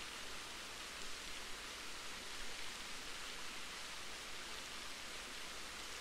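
Waterfall, a steady, even rush of falling water.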